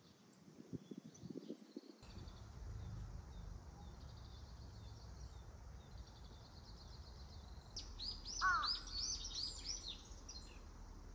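Wild birds singing: faint twittering and trills over a low steady outdoor rumble, then about eight seconds in a bird gives a quick run of loud, falling chirps lasting about two seconds.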